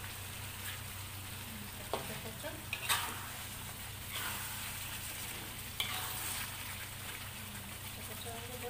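Chicken in a thick, reduced red chilli gravy sizzling in a metal wok as a metal ladle stirs it through, with a few sharp knocks and scrapes of the ladle against the pan.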